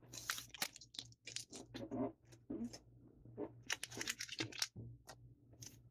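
Foil trading-card booster-pack wrappers crinkling as they are handled, in many short, irregular crackles.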